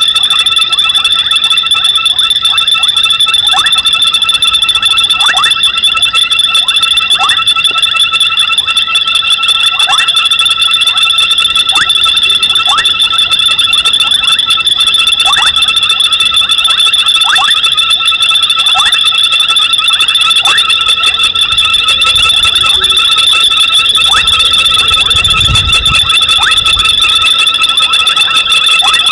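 Night chorus of frogs calling at a waterhole: a steady, high-pitched ringing trill, with a short sweeping call repeated roughly once a second over it. There is a brief low rumble near the end.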